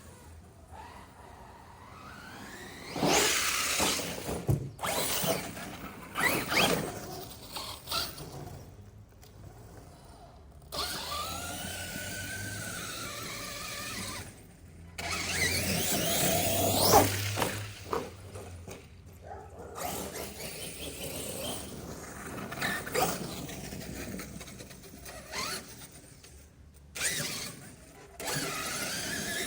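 Brushless electric RC car, an Arrma Kraton, whining up and down in pitch as it speeds up and slows in repeated runs. The sound comes in short back-to-back segments that cut off abruptly, with a few sharp knocks among them.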